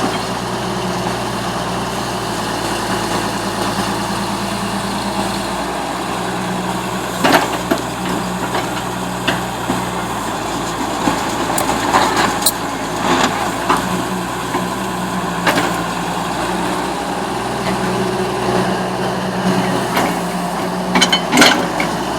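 Diesel excavator engine running steadily, its note shifting a few times as the load changes, with scattered short sharp knocks.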